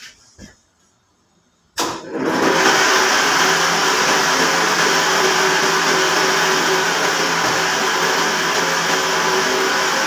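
Electric meat band saw motor switching on about two seconds in and then running steadily with a loud, even whirr and hum.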